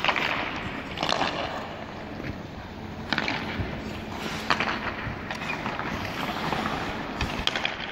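Hockey skate blades scraping and carving on the ice in several hissing strokes, with a few sharp clacks of sticks hitting the puck.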